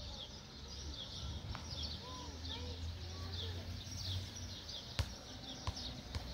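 Small birds chirping repeatedly, short high chirps that slide downward, one or two a second, over a low steady rumble. A few sharp clicks near the end.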